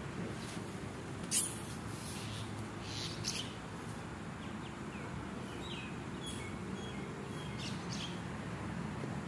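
A few scattered short, high-pitched chirps, the loudest about one and a half seconds in, over a steady low background hum.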